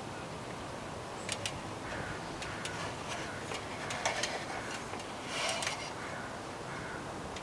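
Faint, scattered clicks and light taps over a steady background hiss, from a storm window being handled and worked loose at the top of a ladder, with a small cluster of clicks about five and a half seconds in.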